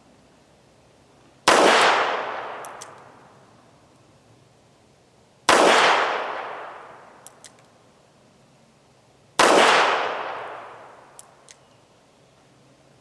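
Three shots from a Smith & Wesson Model 36 .38 Special snub-nose revolver firing cast-bullet loads, about four seconds apart, each trailing off in a long echo. Faint clicks follow between the shots.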